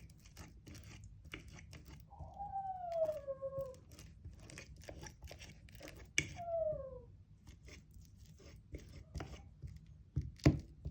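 Fork mashing soft banana pieces, with irregular scraping, squishing and light clicks of the tines on the dish. Two brief falling whine-like tones come about two and six seconds in, and there are a couple of sharper taps near the end.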